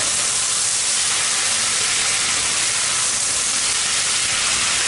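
Potato-and-dill bhaji frying in hot oil in a kadhai over a high flame, a steady sizzling hiss as a spatula stirs it.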